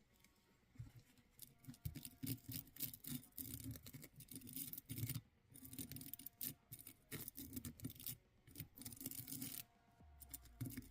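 Soft, rapid, uneven scrubbing strokes of a cleaning swab rubbed against a Bersa Firestorm .380 pistol slide, working off packing grease. The scrubbing stops shortly before the end.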